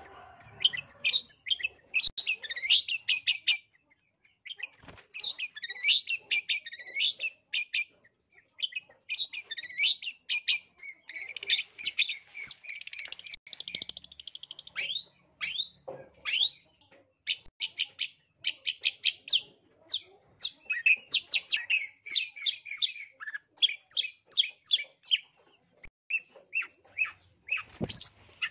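Long-tailed shrike (cendet) singing hard: fast runs of short, sharp chattering notes and whistles, broken by brief pauses. It is the excited, aggressive 'narung' singing of a bird in high breeding condition.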